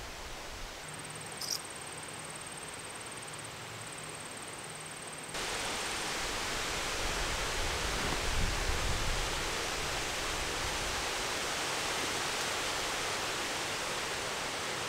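Steady rushing outdoor ambience in woodland, with no speech; it steps up in level about five seconds in. A brief high chirp sounds about a second and a half in.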